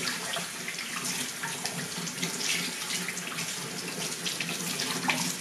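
Kitchen faucet running in a steady stream, the water splashing over and through the layers of a split leek as it is rinsed clean of soil.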